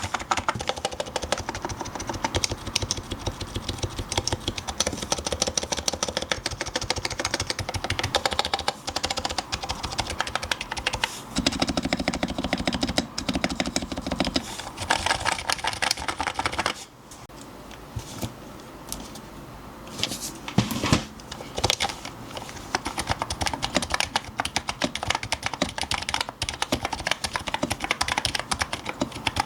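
Fast typing on a lubed electrostatic capacitive keyboard with Topre 30g domes in an aluminium plate: a dense run of keystrokes that stops for about three seconds past the middle, with a few louder single strokes in the pause, then picks up again.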